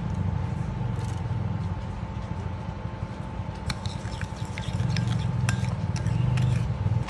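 Metal spoon stirring salt into lime juice in a small ceramic bowl, with light clinks and scrapes against the bowl from about halfway through. A steady low hum runs underneath.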